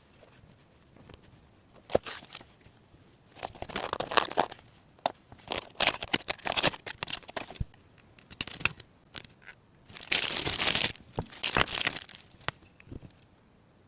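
Thin plastic packaging crinkling and tearing as it is handled and opened, in irregular bursts with a few sharp clicks; the longest, densest crinkle comes about ten seconds in.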